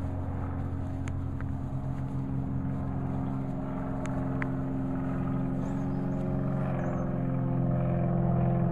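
A motor engine running steadily with a low, even hum that slowly grows louder, with a few faint clicks over it.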